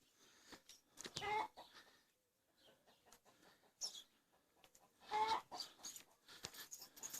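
Chickens clucking: two short calls, about a second in and again about five seconds in, with a brief high chirp between them.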